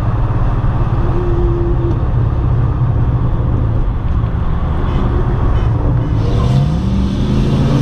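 Ford Mustang GT's 4.6-litre three-valve V8 with full aftermarket exhaust idling with a steady low drone. Near the end the engine note rises steadily as the revs climb.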